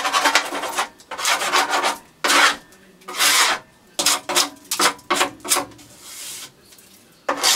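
Wax scraper pulled along the ski of a GT snow racer sled, scraping off excess ski wax in a series of raspy strokes, about seven, with short pauses between them.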